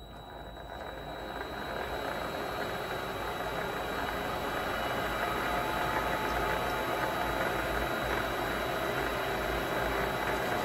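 Vevor mini lathe spindle starting up, the motor and gearing whir rising in level over the first couple of seconds as it comes up to speed, then running steadily.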